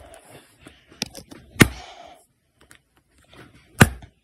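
A hand knocking on a Dell laptop's screen: three sharp knocks, about a second in, at about a second and a half, and near the end.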